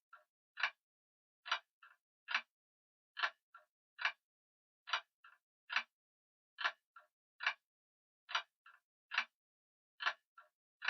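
Grandfather clock ticking in an uneven, limping rhythm: a loud tick, a faint tick and a second loud tick close together, with the group repeating about every 1.7 seconds.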